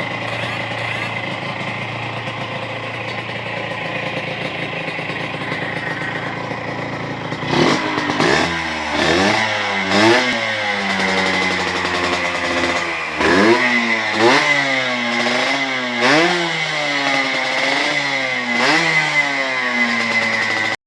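Suzuki RGR150's single-cylinder two-stroke engine idling steadily, then revved in a series of quick throttle blips from about seven seconds in, each rising and falling in pitch.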